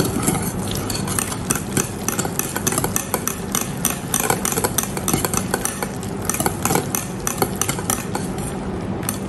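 Wire balloon whisk beating a thick banana-bread batter of mashed banana, creamed butter, sugar and egg in a glass bowl. The wet batter squelches, and the wires tick rapidly and unevenly against the glass.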